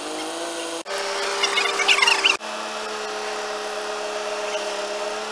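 Truck-mounted hydraulic crane running as it lifts a load, a steady mechanical whine that jumps in pitch at abrupt cuts about one second and two and a half seconds in. Brief high squeaks or chirps come in near the middle.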